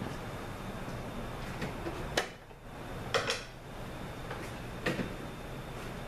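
A few sharp metallic clinks and knocks of metal parts and tools against a 5L40E transmission's aluminium case as a stuck clutch assembly is worked at: one about two seconds in, a quick pair a second later, and another near five seconds. A steady low hum runs underneath.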